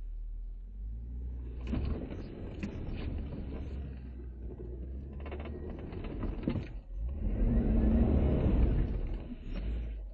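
Jeep Wrangler JK Rubicon's V6 engine working under load in four-low with both axle lockers engaged, crawling at walking pace up a steep, rutted, snowy climb. It surges louder about seven seconds in, then eases off near the end, with the Jeep barely moving.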